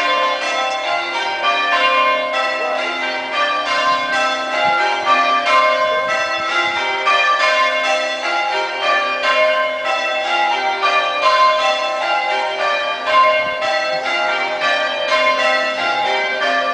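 Church tower bells change-ringing in call changes, the bells striking one after another in a steady, evenly paced repeating sequence.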